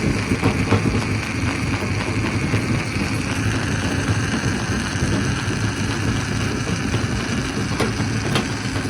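Stone crusher running: a steady heavy mechanical drone with a low engine hum, and a few sharp knocks of rock near the end.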